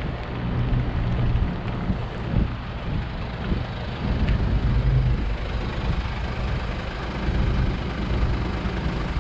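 A motor vehicle driving: a steady low engine hum under constant road noise.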